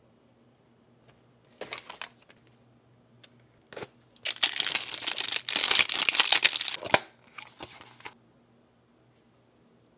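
Cardboard retail box being handled and opened, with rustling and crinkling of its packaging. A few brief bursts of handling come first, then a dense stretch of rustling for about three seconds in the middle, then a few short rustles.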